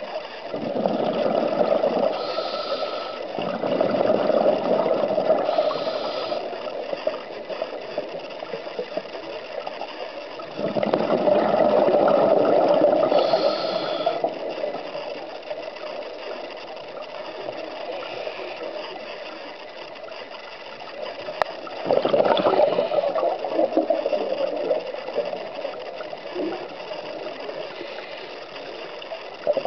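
Scuba diver's regulator breathing underwater: exhaled air bubbles rush out in bursts of a few seconds, with quieter stretches in between.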